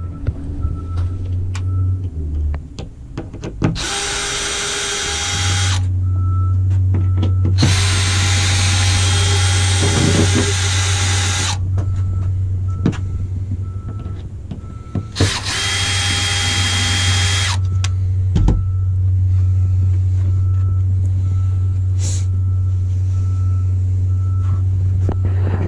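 Cordless drill-driver running in three bursts of a few seconds each, about four seconds in, again just before eight seconds and again near fifteen seconds, backing out screws to take a board off, with clicks between the bursts. A steady low hum runs underneath.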